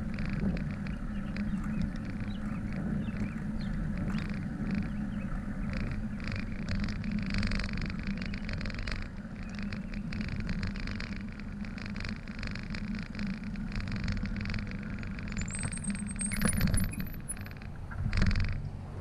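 Wind buffeting a bike-mounted camera's microphone over the rumble of bicycle tyres rolling on asphalt. About three-quarters of the way through comes a brief high rising chirp, repeated a few times.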